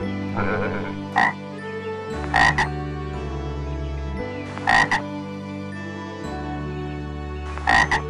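A lamb bleats once at the start. Then a frog calls in short sharp croaks: a single one about a second in, then three doubled croaks two to three seconds apart. Soft background music runs beneath.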